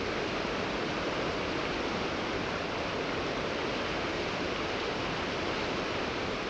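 River water rushing past: a steady, even rush of flowing current.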